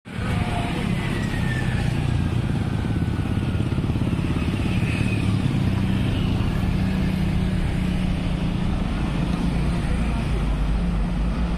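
Road traffic passing close by: several motorcycle engines and a heavy truck's engine running in a steady low rumble.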